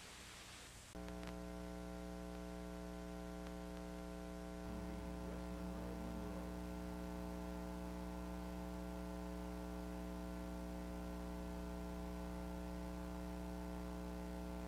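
A steady electrical hum, a stack of many unchanging tones, comes in about a second in after a moment of near quiet. Faint wavering tones float over it briefly near the middle.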